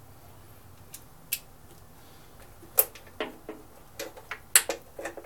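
Hand tools clicking and tapping against a lawn mower engine's metal cover as bolts are worked loose by hand. A few scattered light clicks early on, then a closer run of them from about three to five seconds in.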